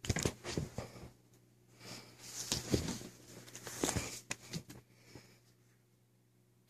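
A hand roughly ruffling a cat's fur: rustling, scuffling bursts in three spells over the first five seconds, then quiet, over a faint steady low hum.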